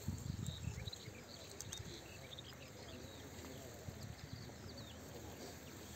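Birds chirping in many short, high calls over a quiet background hiss, with a low rumble in the first second.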